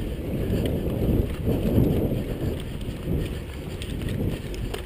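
Rumbling wind and movement noise on a body-worn action camera's microphone as the wearer moves over rough ground, with a few faint clicks.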